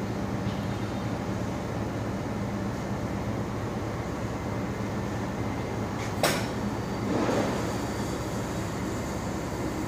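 Steady mechanical hum with a constant hiss from a natural-gas decompression station in operation. There is a sharp click about six seconds in, and a short louder rush about a second later.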